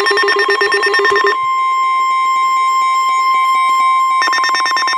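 NOAA Weather Radio warning alarm tone: a single steady tone of about 1 kHz, sounded before a severe thunderstorm warning is read. For the first second and again from about four seconds in, a rapidly pulsing, buzzy, many-pitched sound lies over it.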